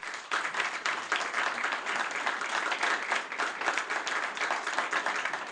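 Audience applause: a small seated crowd clapping steadily throughout, many hands at once.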